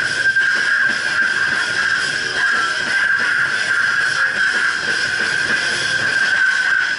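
Loud live music led by distorted electric guitar, with a steady high-pitched tone held over a dense wash of noise.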